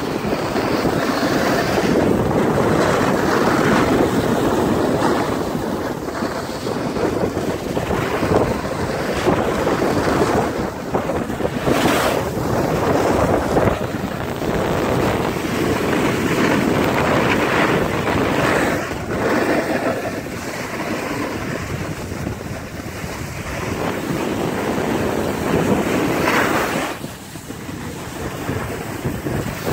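Wind rushing over the microphone with the hiss and scrape of riding down a packed-snow ski slope, steady and loud, easing briefly near the end.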